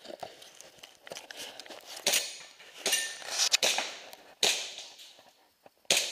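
Airsoft pistol firing about five sharp shots at uneven intervals of roughly a second, starting about two seconds in, each with a short echo.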